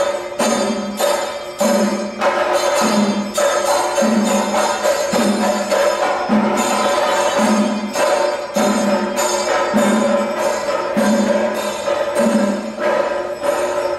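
Chenda melam: Kerala chenda drums with clashing hand cymbals, playing a steady, dense rhythm with a heavy beat a little under twice a second.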